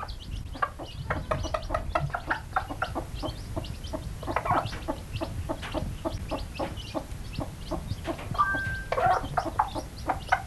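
A brood of newly hatched bantam chicks peeping continuously in quick, high, short notes, with the broody bantam hen clucking among them, most strongly about four and a half and nine seconds in.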